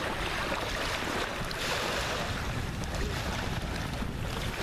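Surf washing on a beach, with wind buffeting the microphone in a steady rumble.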